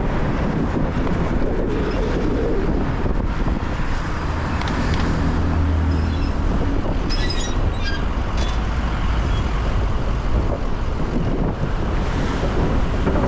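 Steady road noise of a car driving on wet city streets in the rain: tyre hiss and engine rumble. A deeper hum swells for a few seconds near the middle, and a few short, sharp high clicks or squeaks come just after it.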